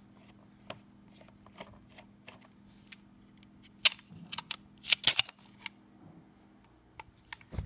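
Scattered small clicks and taps of laptop hard-disk parts and screws being handled, with a cluster of sharper clicks around the middle.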